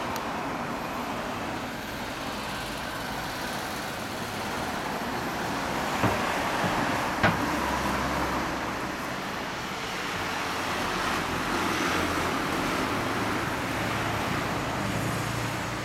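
Steady street traffic noise with cars passing, swelling and fading slowly, and two sharp clicks about six and seven seconds in.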